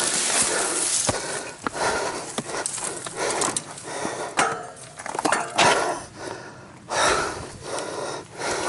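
A mountain biker breathing hard, heavy panting close to the microphone after a crash, with a few sharp clicks and knocks in between.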